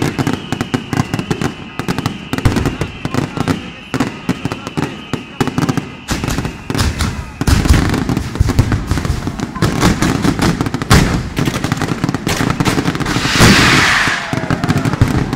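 A rapid, dense barrage of festival firecrackers going off, crackling without pause and growing heavier and louder about halfway through. A high steady tone runs through the first half, and a loud hiss comes near the end.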